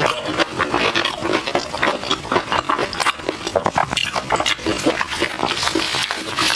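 Close-miked chewing of crispy fried glutinous-rice-coated banana: a dense run of irregular crunches and crackles.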